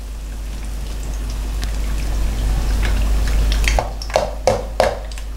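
Hot frying oil sizzling as fried lentil fritters are lifted out in a steel mesh strainer, oil dripping back into the pan. A few sharp clinks of the metal strainer and spoon come about four seconds in.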